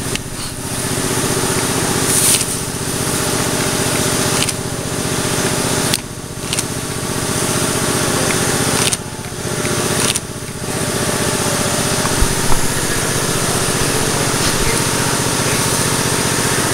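A small engine running steadily, dropping off briefly a few times and picking up again.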